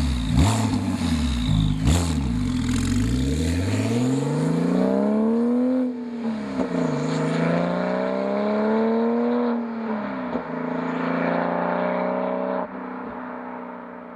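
Porsche 997.2 Turbo's 3.8-litre twin-turbo flat-six with Fabspeed Maxflo mufflers, its engine note swinging up and down in pitch several times, then settling to a steady note and fading out near the end.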